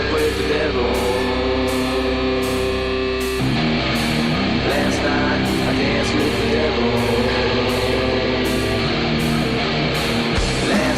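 Instrumental passage of a hard rock song: electric guitar chords over drums, with a cymbal keeping a steady beat and the chords changing about three and a half seconds in.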